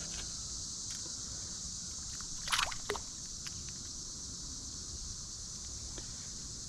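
Steady high-pitched drone of insects such as crickets, over a low wash of creek water sloshing. One brief louder noise comes about two and a half seconds in.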